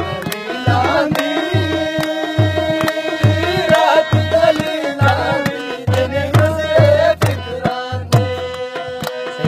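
Live harmonium playing held reed tones. A hand drum, tabla-like, keeps a steady beat of about two deep strokes a second underneath.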